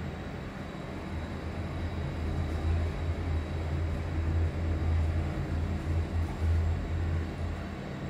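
Otis passenger lift car travelling down between floors: a steady low hum and rumble from the moving car and its drive. It grows a little louder about two seconds in and eases off again near the end as the car slows for its stop.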